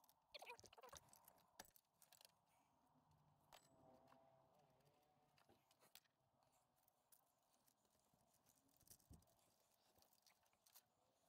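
Near silence with faint metallic clicks from the timing chain of a Peugeot Boxer 2.2 HDI engine being handled. There is a short rattle of clicks about half a second in.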